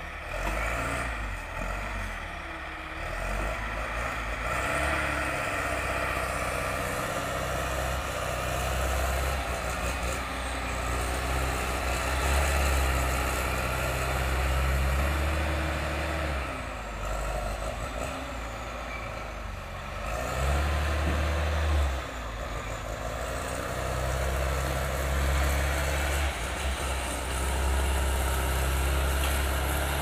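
Heavy diesel engine of a wheel loader working a log fork, rising and falling in strength over and over as the machine takes load lifting logs.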